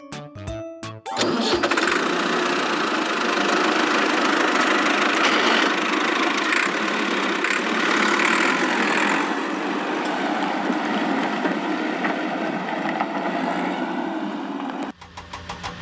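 A vehicle engine sound effect: a dense, steady running noise that switches near the end to a rapid, even putter.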